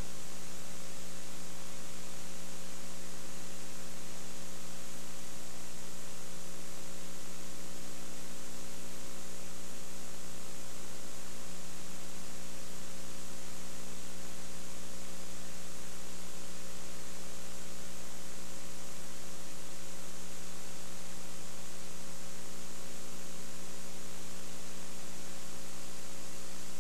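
Steady electrical mains hum with an even hiss, unchanging throughout, with no crowd or field sound: the audio track carries only hum in the recording chain.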